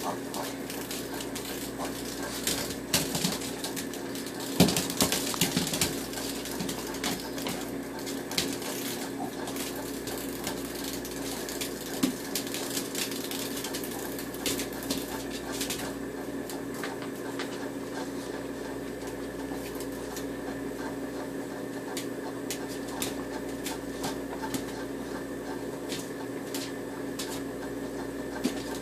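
A dog scrabbling after a cicada on a kitchen floor: scattered sharp clicks and small knocks, busiest in the first few seconds, over a steady low hum.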